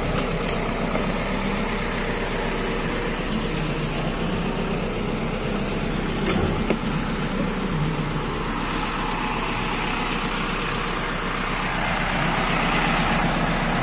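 A steady engine idling, with sharp metallic clicks from a bus luggage-bay door latch being worked, once near the start and again about six seconds in.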